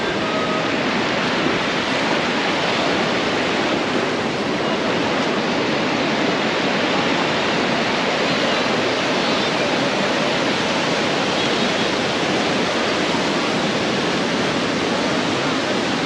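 Steady rush of ocean surf breaking and washing up onto a sandy beach.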